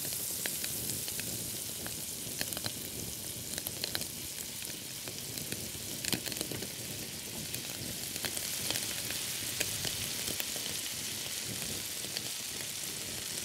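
Halved rock lobsters sizzling on a barbecue grill: a steady hiss scattered with small crackles and pops.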